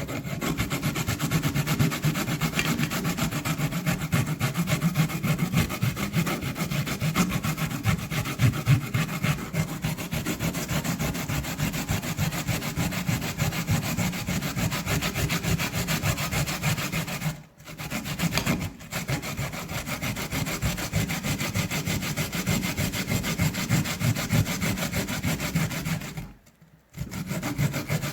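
Raw turnip being grated by hand on a fine grater: rapid, continuous scraping strokes, broken by two brief pauses in the latter part.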